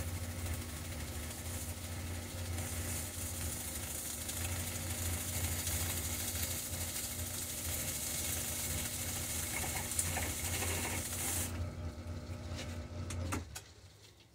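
Small belt-driven lathe running with a steady motor hum while a tool cuts a PVC pipe flange, the higher cutting noise lasting from about two seconds in until about eleven seconds. The lathe then stops near the end.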